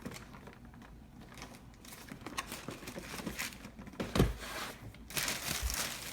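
Boxed camera accessories being handled: packaging crinkling and rustling with light clicks and taps, a dull thump about four seconds in, and a denser stretch of rustling near the end.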